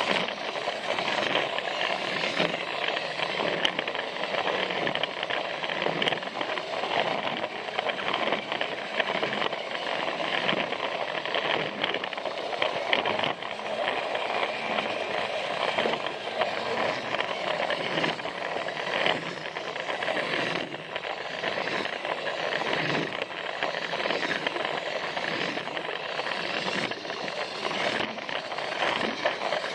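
Plarail battery-powered toy train running along plastic track, its motor and gears whirring steadily, with frequent clicks and rattles as the wheels cross the track joints.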